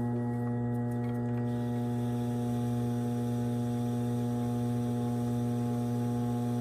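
Electric pottery wheel's motor running with a steady hum.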